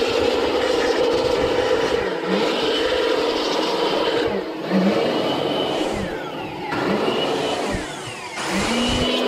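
Handheld electric air blower running, blowing dust out of a graphics card's fans; its sound eases off and picks up again a few times.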